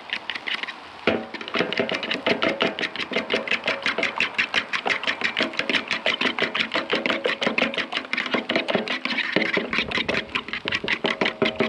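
A metal spoon beating eggs in a plastic bowl: fast, even clicking at about six strokes a second. Guitar music comes in underneath about a second in.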